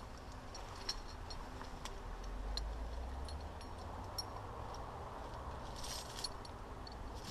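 Faint handling noise: scattered small clicks and a brief rustle about six seconds in, over a low rumble.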